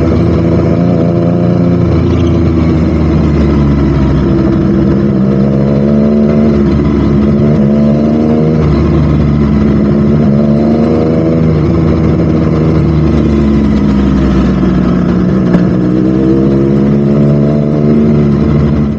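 Triumph Street Triple RS three-cylinder engine running loud through a Spark slip-on exhaust, its note rising and falling in pitch several times as the throttle is opened and closed.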